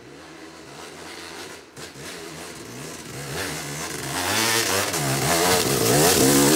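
Yamaha YZ250X two-stroke dirt bike engine revving up and down while it climbs a loose, leafy hill. It grows louder as the bike comes toward the camera and is loudest as it passes close near the end.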